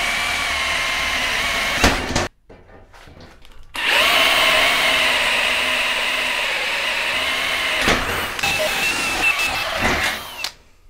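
Electric drill boring through steel plate: a steady motor whine with the bit cutting. It stops about two seconds in, spins back up with a rising whine a second and a half later, and runs on until just before the end.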